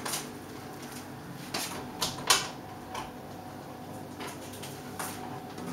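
Handling noise: a few short knocks and rustles over a steady low hum, the loudest about two seconds in.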